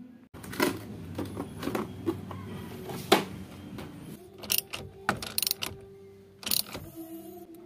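Scattered metallic clinks and knocks as a steering wheel puller's bar and bolts are handled, taken from a plastic tool case and held to the steering wheel hub. A steady low hum runs beneath.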